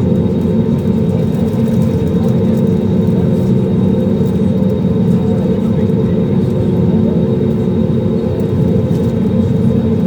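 Airbus A320 engines and airflow heard from inside the passenger cabin: a steady, loud rumble with a constant hum running through it.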